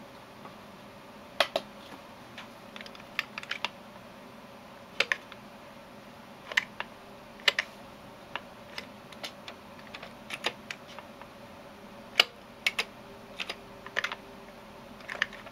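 Irregular sharp plastic clicks of computer controls being pressed, some single and some in quick pairs or short runs of three or four, over a faint steady hiss.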